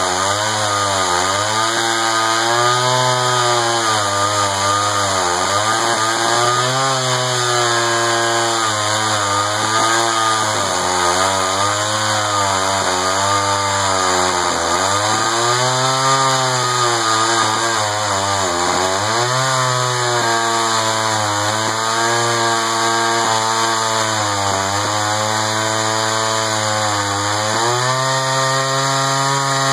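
Echo CS-500VL two-stroke chainsaw with a 20-inch bar cutting through a large red oak slab, running at full throttle. Its pitch sags and recovers every few seconds as the chain bites into the wood under load.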